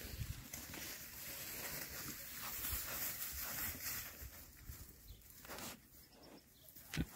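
Wild boars snuffling and grunting as they root among long grass, with the grass rustling. A short sharp crack near the end.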